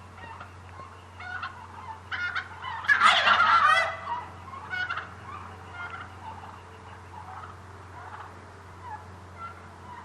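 Merriam's wild turkey gobbling: one loud gobble about three seconds in, with fainter calls before and after it.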